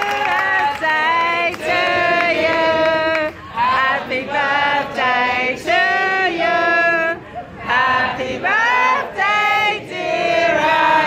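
Singing, with long held notes that bend between pitches and short breaks between phrases.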